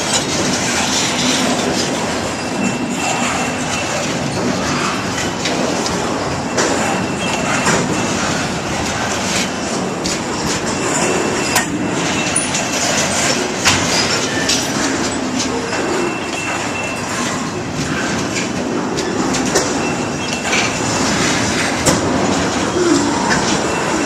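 Freight train cars rolling past with a steady rushing rumble, wheels clicking over the rail joints, and a faint, intermittent high wheel squeal.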